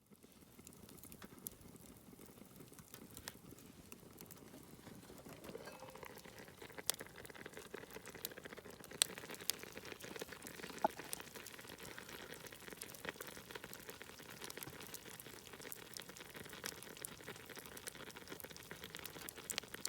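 Sukiyaki simmering in a pan over a wood fire: a steady bubbling sizzle that builds over the first few seconds, with scattered sharp pops and crackles.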